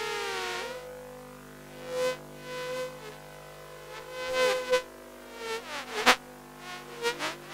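A sound-art piece made from an electric toothbrush's buzzing motor, layered and pitch-shifted into sustained humming drones. About four swells rise out of the drone, their pitches swooping down and back up.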